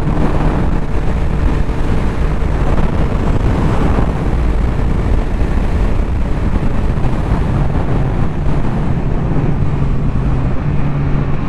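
Yamaha MT-09's three-cylinder engine running at a steady cruising speed, over a constant rush of wind and road noise; the engine note steps up slightly near the end.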